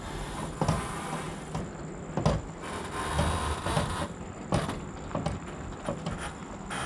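A Ford F-450's engine running low and steady as it slowly backs a fifth-wheel RV over gravel, with the tyres crunching and popping stones now and then.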